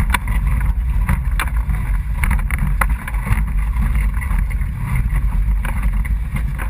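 Polaris RZR side-by-side running at low speed over a rocky trail: a steady low engine and drivetrain rumble with a few sharp knocks and rattles from the chassis, and wind buffeting the microphone.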